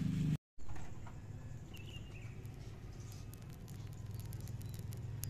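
Quiet outdoor ambience: a low steady hum with light scattered patter and faint ticks, and a short high chirp about two seconds in.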